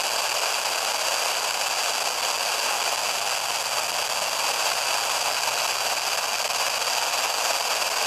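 Steady static hiss from a Sangean portable radio's speaker, with no program audio: dead air on the tuned station.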